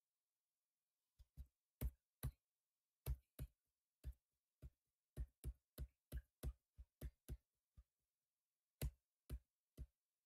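About twenty short, sharp taps at an uneven pace, from a computer input device worked to scroll down a web page, with a pause of about a second near the end.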